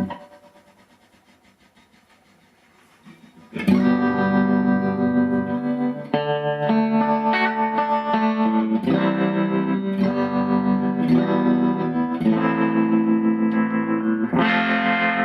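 Electric guitar chords played through a Fender Custom Vibrolux Reverb all-valve amp. A chord dies away at the start, a quiet gap of about three seconds follows, then chords are strummed every one to two seconds.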